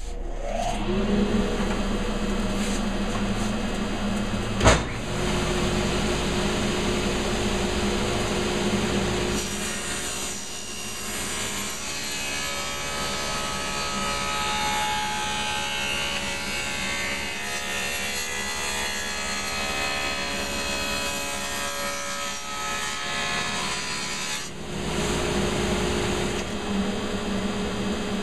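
Table saw motor spinning up and running, with a single sharp knock about five seconds in. From about ten seconds in to near the end, the blade rips a wooden cabinet door frame down the middle, then runs free again.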